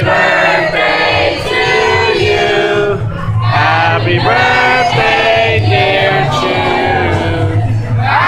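A group of voices singing loudly together, a birthday song for the woman being celebrated, with a low pulsing thump beneath it.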